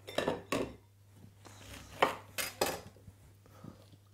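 Kitchen knife cutting a lemon on the counter: about five sharp knocks and clatters of the blade.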